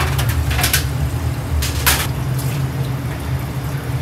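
Steady low hum of kitchen machinery, with two short clattering or splashing sounds, about half a second and about two seconds in, as fish are handled in a steel sink and on a metal tray.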